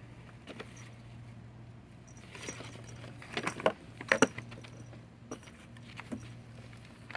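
A cat scrabbling in paper bags and a cardboard box: scattered paper rustles and scratchy taps, with a busy flurry of crinkling a little past the middle, over a steady low hum.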